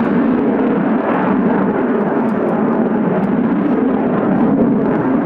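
Eurofighter Typhoon's twin EJ200 turbofan jet engines, a loud, steady jet roar as the fighter flies overhead.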